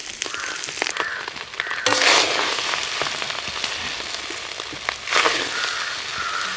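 Fried rice with egg sizzling and being stir-fried in a pan over high flame, a spatula scraping the pan over and over, with two louder surges of sizzle about two and five seconds in.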